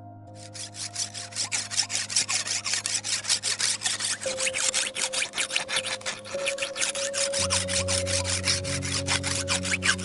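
Machete blade being sharpened with a hand file: quick, rhythmic rasping strokes of metal on steel, several a second, starting about half a second in. Soft background music with held notes plays underneath.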